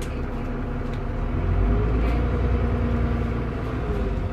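TransBus Trident double-decker bus's diesel engine and Voith gearbox running, heard on board: a steady hum whose low drone swells about a second and a half in and eases off near the end, with a faint whine gliding above it.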